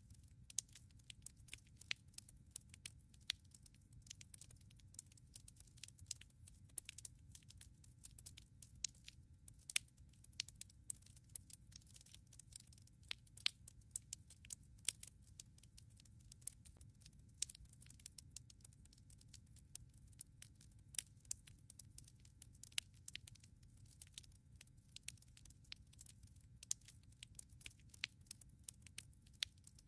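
Wood logs burning in a fireplace, crackling: irregular sharp snaps and pops, several a second and some much louder than the rest, over a faint steady low rumble.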